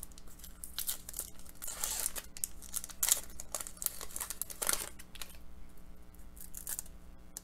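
Foil wrapper of a hockey card pack being torn open and crinkled by hand: a run of irregular rips and crackles, dying down after about five seconds as the cards are slid out and handled.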